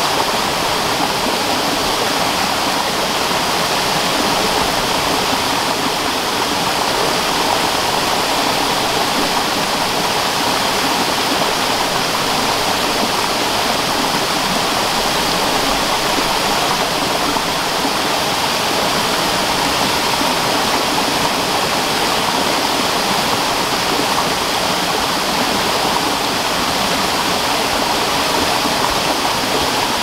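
Waterfall cascading down rock into a boulder-filled stream: a steady, unbroken rush of falling and splashing water.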